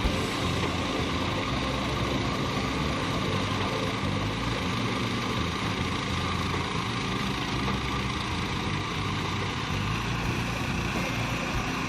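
A small engine running steadily, at an even speed with no revving.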